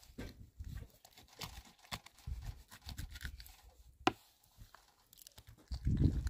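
Hands-on food preparation noise: short tearing and scraping sounds and light clicks, with a few soft thuds, the loudest about six seconds in.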